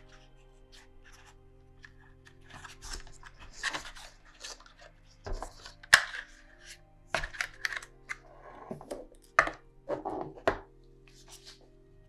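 Cardboard packaging rustling and scraping as the charging case is lifted from its tray and the cable is pulled out, in a string of short handling noises with a sharp click about halfway through. Soft background music with held notes runs underneath.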